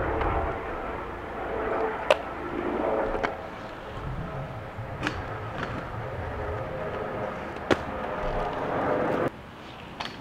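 Inline skate wheels rolling on rough pavement, with several sharp clacks of the skates striking the ground or an obstacle, and wind buffeting the microphone. The rolling stops abruptly near the end.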